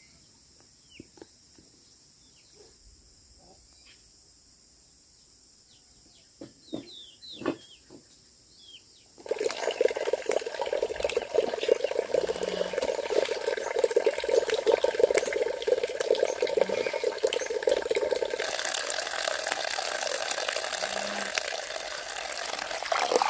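Scattered high chirps over quiet, then about nine seconds in water suddenly starts running and splashing steadily and loudly, its sound changing slightly about halfway through the rush.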